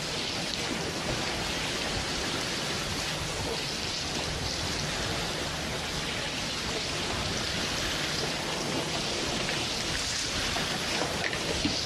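Steady rain, an even hiss that does not let up.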